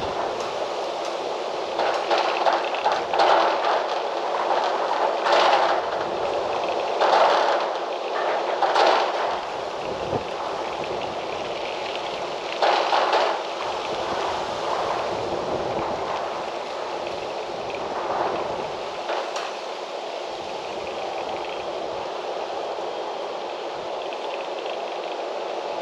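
Wind gusting through trees: a steady rushing with several louder gusts of rustling in the first half, settling to a more even rush later.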